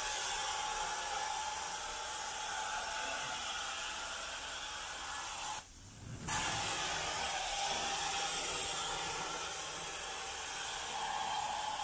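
Carpet-cleaning extraction wand working over carpet: a steady hiss of suction and spray with a faint whistling tone. The sound drops out briefly about six seconds in, then carries on.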